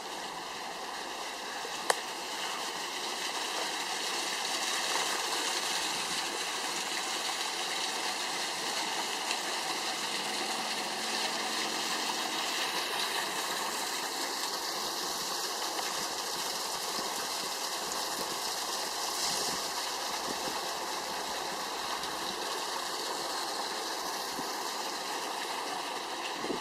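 Water running steadily down a mill race, an even, continuous rush of flowing water. One sharp click about two seconds in.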